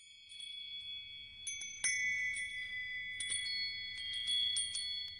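Several metal chimes tinkling at irregular moments, each strike ringing on in high, overlapping tones.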